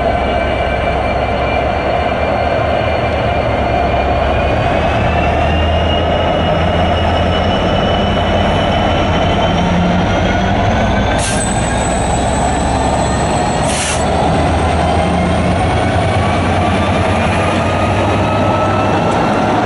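Heritage diesel locomotive-hauled train running: a steady heavy rumble under several high whining tones that slowly rise in pitch. About halfway through, a thin, very high squeal sounds for a couple of seconds and stops sharply.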